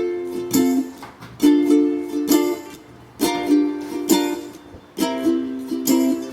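Background music: strummed ukulele chords in a steady repeating pattern.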